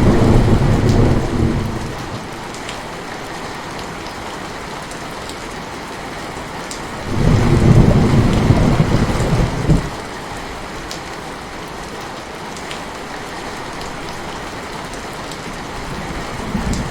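Heavy rain falling steadily in a thunderstorm, with low rolls of thunder. One roll fades out about two seconds in, a louder one comes about seven seconds in and lasts some three seconds, and a faint one comes near the end.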